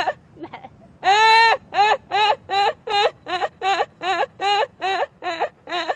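A woman laughing hard: a long high-pitched peal about a second in, then a run of short, quick 'ha' bursts at about three a second.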